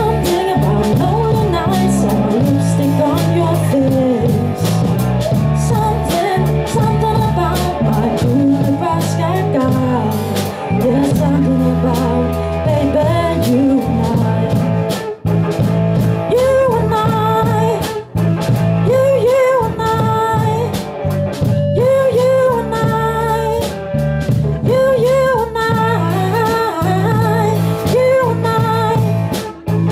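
Live band playing through a PA: a woman singing into a microphone over electric guitar and a drum kit.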